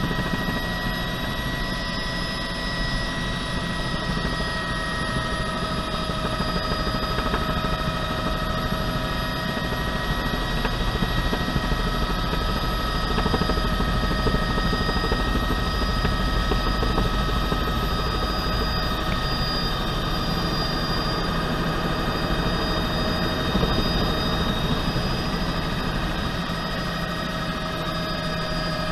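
Cabin noise of a 1980 Bell 206B3 JetRanger helicopter descending to land: the steady whine of its Allison 250 turboshaft, several high tones held level, over the low drone of the rotor, heard from the front seat.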